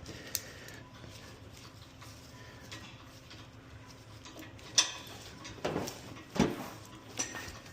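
A few sharp knocks and clicks of hard objects being handled, the loudest about five seconds in, with a short rattling clatter about a second later.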